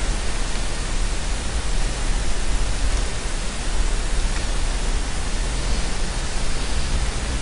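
Steady hiss of background noise with a low rumble underneath, and one faint click a little past the middle.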